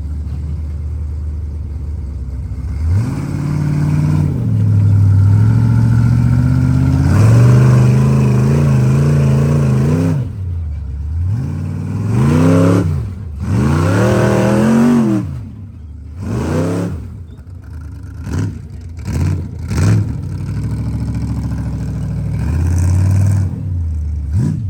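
Rock crawler's engine idling and then revving over and over as the throttle is worked: a long held rev, then several rev-ups that rise and fall, a run of quick short throttle blips, and one more rev near the end.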